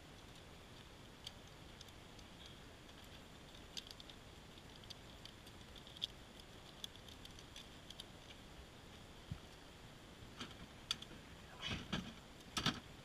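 Faint, scattered metallic clinks and ticks of a steel trap chain being handled, with a cluster of louder knocks near the end.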